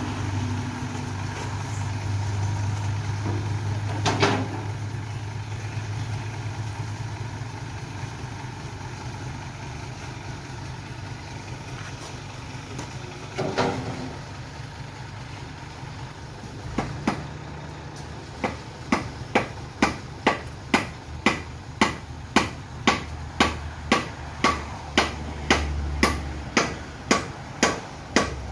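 Truck engine running steadily to power a Furukawa Unic truck-mounted crane, with two sharp metal clanks along the way. About two-thirds through, the engine note changes and a regular sharp clicking, about two clicks a second, starts and keeps on.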